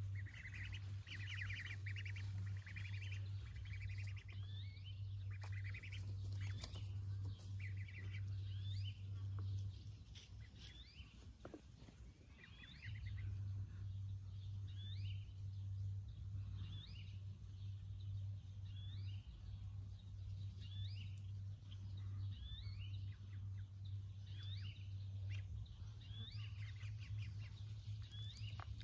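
Ducklings peeping: short high chirps, thick at first, then coming about once a second. Under them runs a steady low hum that drops out for a few seconds near the middle.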